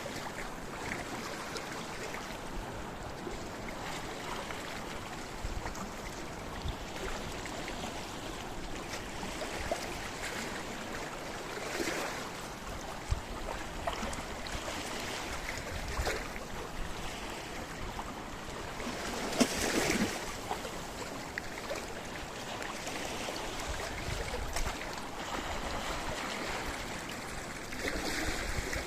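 Sea waves washing over a rocky shore: a continuous rush of water that swells every few seconds, the strongest surge about twenty seconds in.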